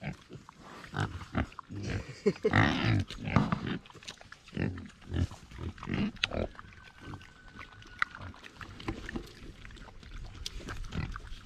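Pigs grunting at close range, a string of short, irregular grunts.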